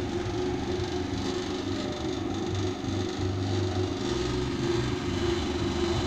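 Stainless-steel oil spinner, a centrifugal oil drainer for fried food driven by a washing-machine motor, running with a steady hum.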